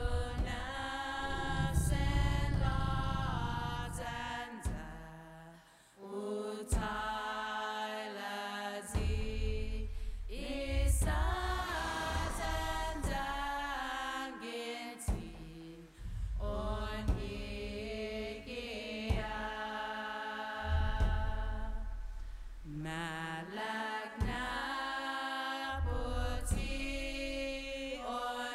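Film score of chanted choral singing: several voices hold long sung phrases of a few seconds each, separated by short breaks, over a deep low layer with a few sharp hits.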